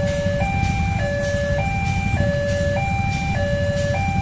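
Railway level-crossing warning alarm sounding its two-tone electronic signal, alternating between a high and a low note each held a little over half a second, warning that a train is approaching. Underneath is a steady low rumble of idling motorcycle engines queued at the lowered barrier.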